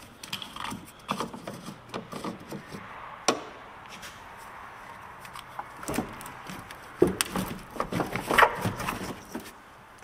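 Irregular clicks, knocks and clatters of hands and tools working at a car battery's cables and hold-down. Heavier knocks and scrapes come about seven seconds in as the dead battery is worked loose and lifted out of the engine bay.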